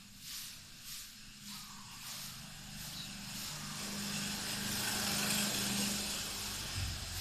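A road vehicle passes: a rushing noise with a low engine hum swells to a peak and then eases off. Under it, and most plain at the start, is a steady pulsing hiss of about one and a half beats a second.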